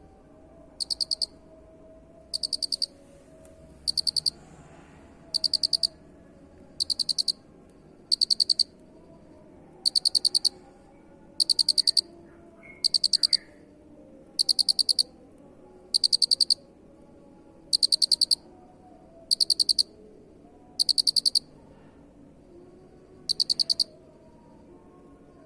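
Cricket chirping: short, high-pitched trills of rapid pulses, each about half a second long, repeating steadily about every one and a half seconds.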